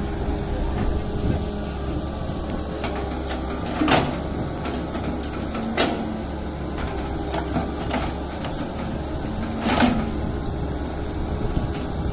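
Caterpillar 320C hydraulic excavator working, its diesel engine running with a steady low drone and hum. Three sharp knocks stand out, about four, six and ten seconds in.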